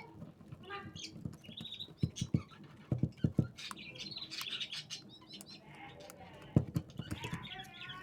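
Small birds chirping in quick repeated rising chirps, with scattered sharp clicks and knocks from handling, the loudest of them about two, three and six and a half seconds in.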